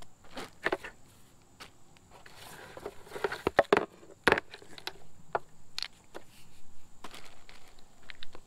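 Bungee cords being rummaged through and handled: irregular rustling and sharp clicks, loudest about three to four seconds in.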